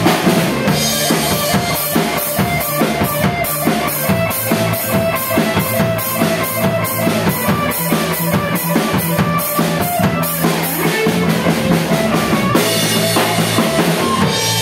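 Live instrumental rock jam: a Tama drum kit keeps a steady beat on bass drum, snare and cymbals under an electric bass line and a Stratocaster-style electric guitar.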